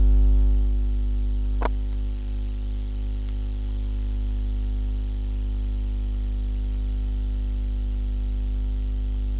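Steady electrical mains hum with a stack of evenly spaced overtones, and a single sharp click about a second and a half in.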